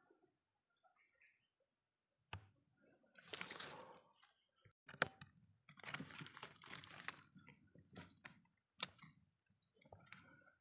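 Forest ambience: a steady high-pitched insect drone, with scattered rustles and a few sharp clicks or knocks. The sound cuts out for a moment about five seconds in, after which it comes back slightly louder.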